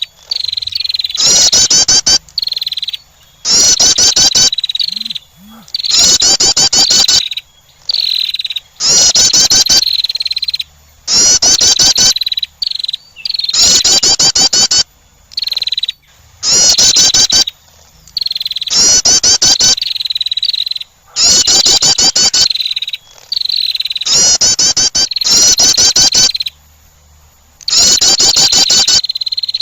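Female wren's call, a loud, rapid high-pitched trill about a second long, repeated about every two seconds, around a dozen times. It is a lure call for attracting wrens.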